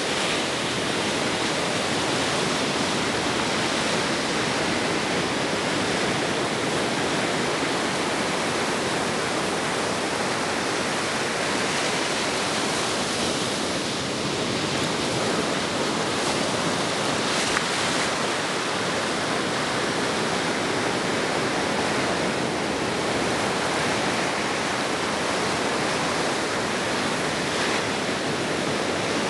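Ocean surf washing in steadily on the beach, an even hiss with no single wave standing out.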